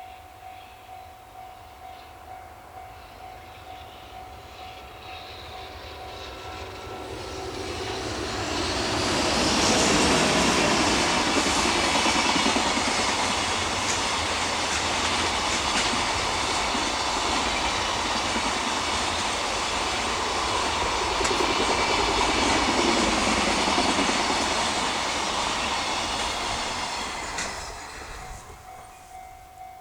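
EH500 electric locomotive and its container freight wagons passing at speed. The rumble and rail clatter build over a few seconds, stay loud for about eighteen seconds, then fade away near the end. A faint ringing pulses about twice a second before the train arrives.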